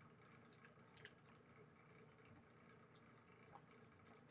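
Near silence: room tone with a few faint small clicks, the clearest about a second in.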